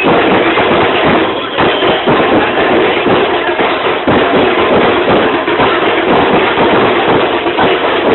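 Loud music of a Ganesh immersion street procession, a dense continuous din with no pauses.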